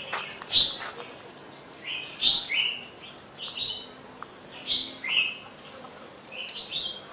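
Birds chirping: short high calls with quick pitch sweeps, repeated every second or so.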